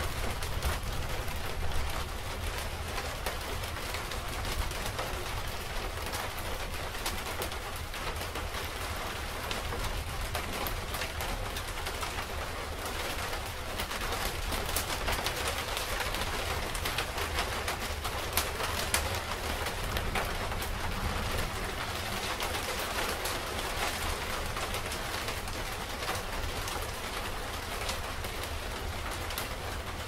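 Steady rain falling, a dense hiss of drops with many small pattering taps. A constant low rumble runs underneath.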